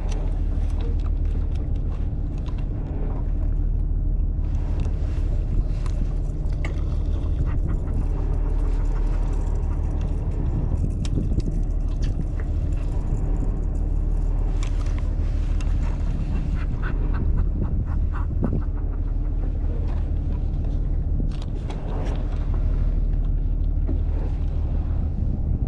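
Boat engine running steadily with a continuous low drone, and short, sharper sounds scattered over it.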